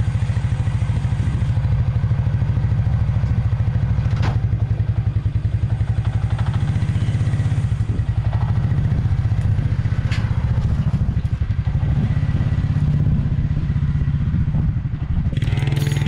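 Suzuki King Quad 300's single-cylinder four-stroke engine running steadily, with a couple of sharp clicks, after its carburetor rebuild. Music comes in near the end.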